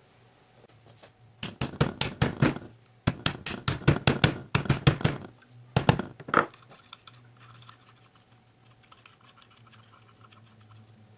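Quick runs of sharp metallic clicks and knocks from a differential carrier being handled in its housing, in three bunches over a few seconds, then it goes quiet.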